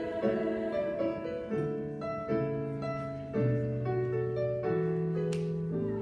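Treble choir singing with piano accompaniment, moving through slow held chords; a short sharp noise about five seconds in.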